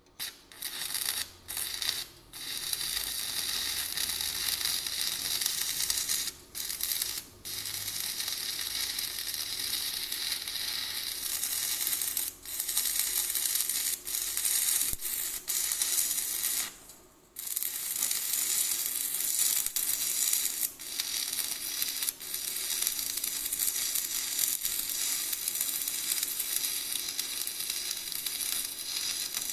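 Electric arc welding on a car chassis: a steady crackling sizzle from the arc, broken by several short pauses between runs.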